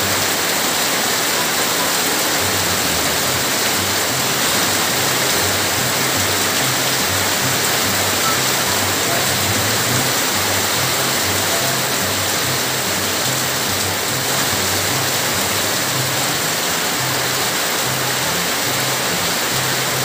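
Heavy rain falling steadily onto the ground, with background music's stepping bass line underneath.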